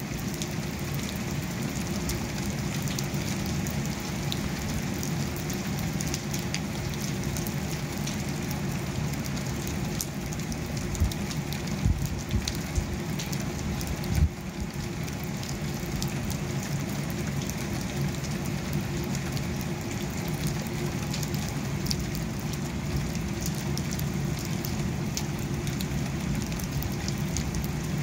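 Steady rain on a window pane and the wet ground outside: a constant hiss dotted with fine ticks of single drops. A few low thumps come about halfway through.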